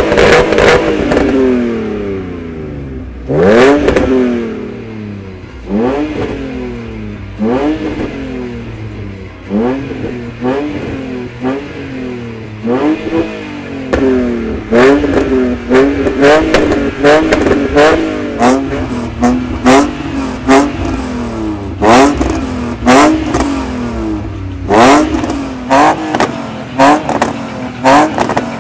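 BMW E46 with a Supersprint sport exhaust being revved from idle: each throttle blip rises in pitch and falls back. For the first half the revs come every two or three seconds; in the second half they turn into quick, sharp blips in close succession.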